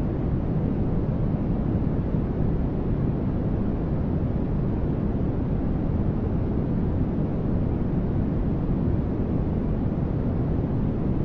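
Continuous white-noise sleep track: an even, unchanging rush with no individual sounds, weighted heavily toward the low end so it sounds more like a deep rumble than a bright hiss.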